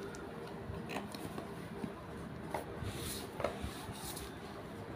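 Fingers scratching and picking at the packing tape on a small cardboard box: a few faint, scattered clicks and scrapes as the taped parcel is handled and worked at.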